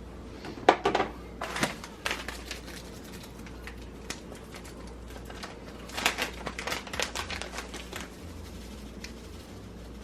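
Kitchen food-prep handling: two clusters of quick clicks and taps, one about a second in and another past the middle, over a low steady hum.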